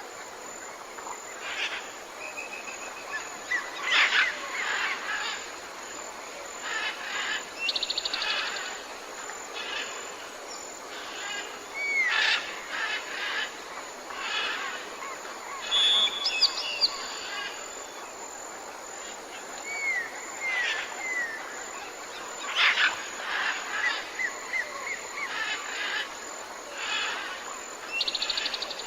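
A chorus of songbirds singing and calling: short chirps, curved whistled notes and quick buzzy trills, one after another.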